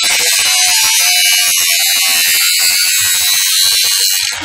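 Maximum 20-volt cordless brushless angle grinder grinding steel with an old grinding disc: a loud, steady scream of the abrasive wheel on metal, which stops just at the end as the disc comes off the work.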